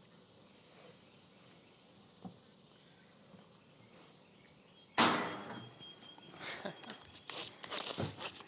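Chalk line snapped once against the roof: a single sharp, loud crack about five seconds in after near quiet, followed by scattered knocks and rattles.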